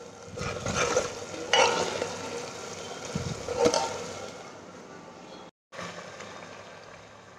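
Chicken curry sizzling and bubbling in a pot while a wooden spatula stirs and scrapes through it, with a few louder scrapes in the first four seconds. It breaks off briefly about five and a half seconds in, then goes on as a quieter, steady sizzle.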